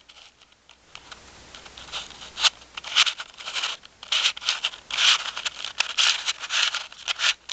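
Square-1 puzzle being turned quickly by hand: its plastic layers scrape and click in a run of rapid turns, starting about a second in.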